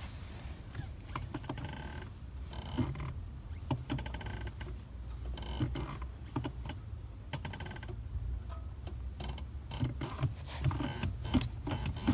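Clutch pedal of a 2018 Volkswagen Cross Up TSI pressed several times, each stroke giving short creaking squeaks over a low steady hum. It is the chronic Up TSI clutch noise, which on this car starts once it is warm.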